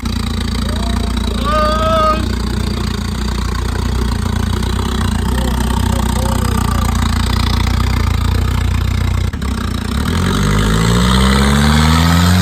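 The turbocharged SR20 four-cylinder engine of a Nissan Bluebird runs at a steady low speed. About ten seconds in, its revs climb steadily as it pulls under throttle.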